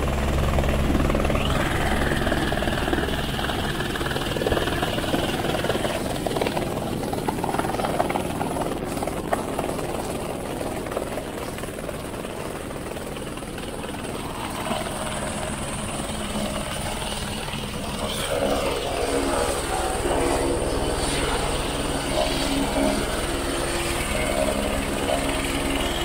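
Airbus AS350 helicopter running close by as it lands on snow and then sits with its engine running and rotor turning: a steady turbine-and-rotor noise with a low rotor hum. It eases off somewhat in the middle and comes back up near the end.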